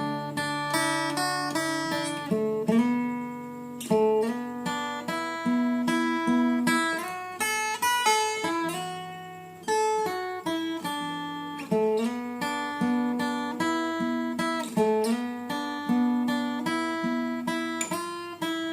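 Instrumental music: acoustic guitar picking a melody over chords, with no singing.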